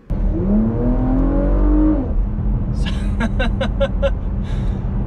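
2020 Porsche Macan Turbo's 2.9-litre twin-turbo V6 under hard acceleration, heard from inside the cabin: the engine note rises for about two seconds, then drops and runs on steadily. Over the engine a short laugh follows, about three seconds in.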